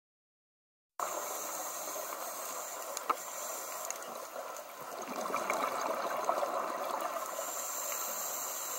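Underwater ambience picked up through a dive camera's housing: a steady muffled hiss that begins about a second in and swells louder around the middle, with one sharp click about three seconds in.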